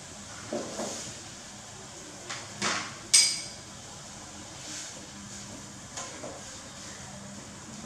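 Metal spoon knocking and scraping against an aluminium cooking pot while stirring. The clinks are scattered, with a couple of duller knocks near the start and a sharp ringing clink about three seconds in, the loudest of them.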